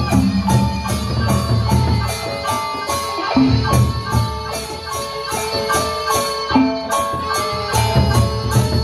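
Lombok gendang beleq ensemble playing: large double-headed drums beating under a melody on small tuned gongs, with steady cymbal clashes about four a second. The drums drop back for a couple of seconds about a second in, then come in strongly again.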